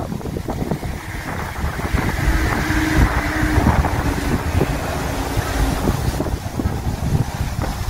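Wind gusting hard, buffeting the microphone with a low rumble, rising and easing in waves.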